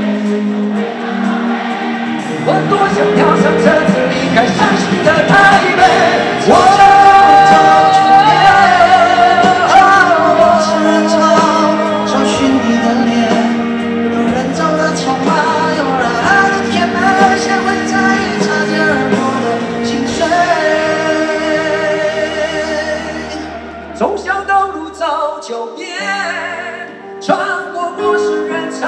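Live concert performance of a Mandarin pop-rock ballad: two male singers with acoustic and electric guitar and band backing. The music thins out and drops in level about four seconds before the end.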